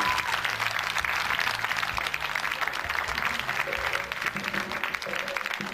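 Studio audience applauding over stage music with sustained low notes; the clapping thins out toward the end.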